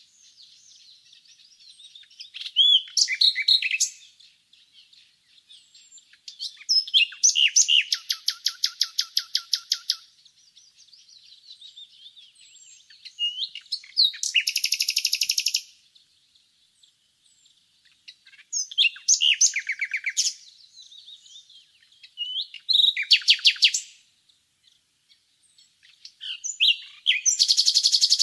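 Common nightingale singing: loud phrases every few seconds, each a fast run of rapidly repeated notes, with fainter warbling in between.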